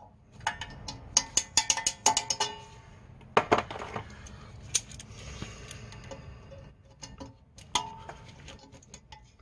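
Steel pliers and a small coil retainer spring clicking and clinking against a parking-brake shoe and its backing plate as the spring is worked off. The clicks come in irregular bunches, with a louder clatter about three and a half seconds in and single clicks later.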